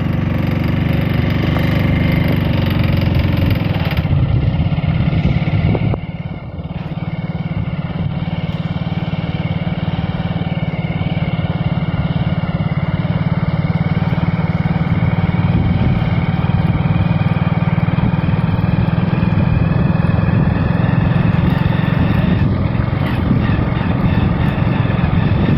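A vehicle engine running steadily just after being started, with a brief dip in loudness about six seconds in.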